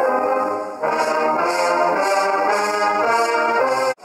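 A marching brass band with sousaphones and trumpets playing a tune together in held chords. The music cuts off abruptly near the end.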